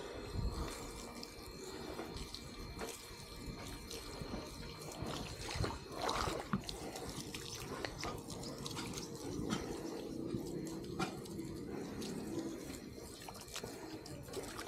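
Water dripping and trickling in irregular drips, from water run over fresh cement work to cure it.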